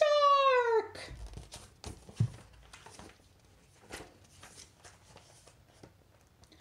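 A woman's voice calls out "shark!" with a falling pitch, then faint paper rustles and a few soft clicks as the pages of a picture book are handled and turned.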